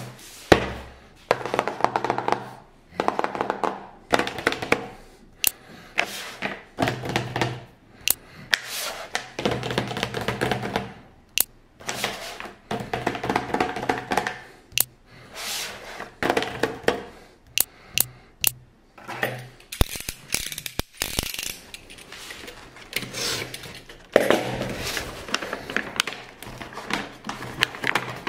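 Unboxing handling noise: packaging rustling and scraping in repeated bursts, with many sharp clicks and taps.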